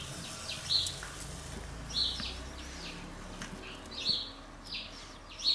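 A small bird chirping repeatedly, one short high call every second or two.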